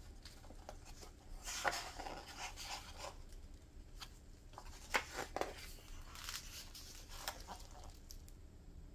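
A page of a hardbound book being turned by hands in nitrile gloves: paper rustling, with a few sharp crackles of the page about halfway through.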